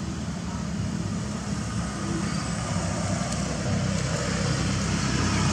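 Motor vehicle engine running, a steady low rumble that grows slightly louder near the end.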